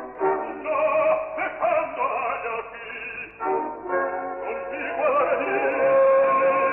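Operatic baritone singing with orchestral accompaniment, the voice swelling into a held note with wide vibrato in the second half. The recording sounds dull and muffled, with no highs.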